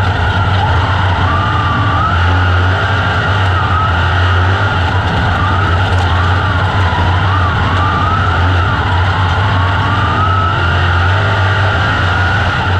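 Onboard sound of a dirt-track sprint car's engine running loud and continuous at race speed, with a deep steady drone and a higher tone that wavers up and down.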